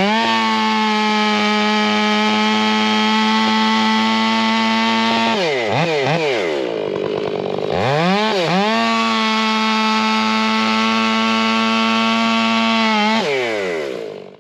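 STIHL MS461 two-stroke chainsaw run up to full throttle and held at a steady high pitch, twice. Between the two runs the revs drop and dip briefly, and near the end the saw falls back toward idle.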